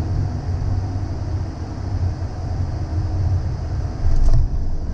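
Cessna Citation CJ3 jet at landing, heard from inside the cockpit: a steady low rumble of engine and airflow noise, with a brief louder thump about four seconds in.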